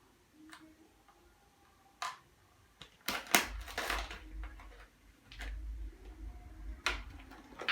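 Small hand tools being picked up and handled on a work surface: a few sharp clicks in the first seconds, then a busier stretch of clattering and low handling thumps from about three seconds in.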